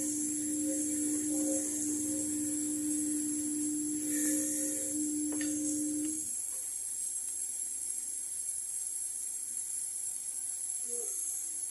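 Bench polishing motor running with a steady hum, then switched off about six seconds in, its pitch sagging as it spins down. A faint click just before it stops.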